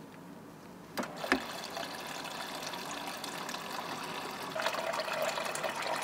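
Water running from a KitchenAid refrigerator's water dispenser into a plastic cup: a click about a second in, then a steady stream that grows a little louder near the end. The flow shows the new filter head has cleared the blocked water supply.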